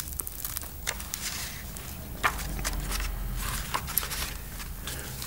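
Paper pages of a small book being turned and handled, scattered soft clicks and rustles, one sharper click a little past two seconds in, over a low steady hum.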